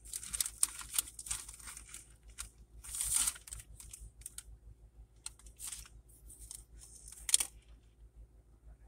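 Paper food wrapper crinkling and rustling in short, irregular bursts as it is handled, with a sharper crackle about seven seconds in.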